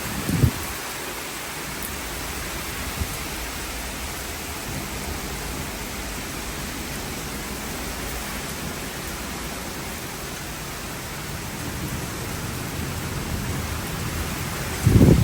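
Heavy rain falling steadily in a thunderstorm, a constant hiss, with a brief low rumble just after the start and another, louder one near the end.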